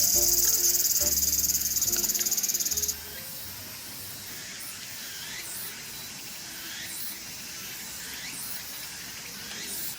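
Loud, high-pitched insect chorus, a fast even trill, over soft background music; both cut off suddenly about three seconds in, leaving a quieter stretch with faint scattered chirps.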